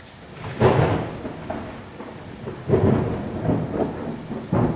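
Thunderstorm sound effect: rain, with three rolls of thunder about two seconds apart, each coming on suddenly and fading away.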